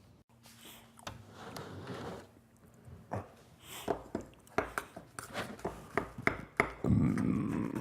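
A man's burp, low and rough, lasting about a second near the end, after a run of light clicks and knocks.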